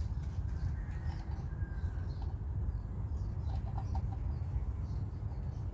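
A steady low rumble, with a few faint bird calls and short clucking notes over it.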